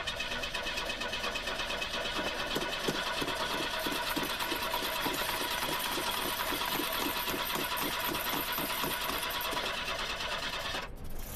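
Ford Pinto's starter cranking the cold engine after the car has sat for over a year: a long, steady crank with a regular beat of about four to five compression pulses a second. It cuts off suddenly near the end.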